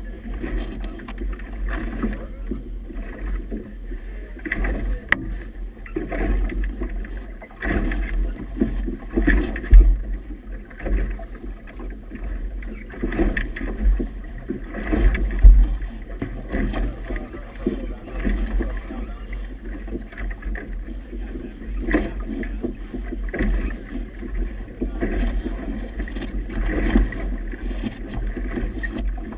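Wind buffeting the microphone and choppy river water slapping and sloshing against a small boat's hull. An irregular rumbling noise with gusty peaks, loudest about ten and fifteen seconds in.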